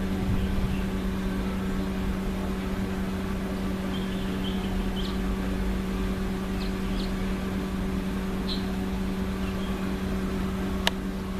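Steady machine hum with a low drone, holding one unchanging pitch, with a few faint short high chirps in the middle and a sharp click near the end.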